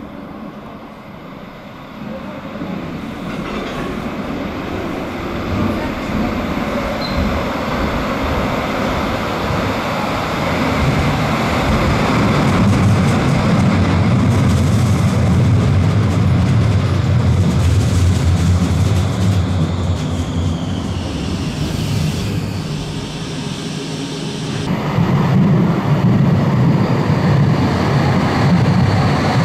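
Trams running through an underground station: one approaches and runs past, its rumble of wheels on rails building over the first dozen seconds. About three-quarters of the way in, the sound changes abruptly to the rumble of another tram pulling in.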